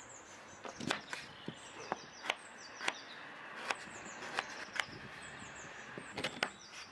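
Kitchen knife cutting a pear into chunks on a wooden cutting board: about nine sharp knocks of the blade hitting the board, irregularly spaced. Small birds chirp high in the background.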